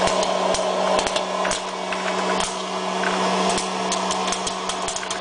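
Hot-air popcorn popper running: its fan blows with a steady hum while kernels pop in frequent, irregular sharp pops.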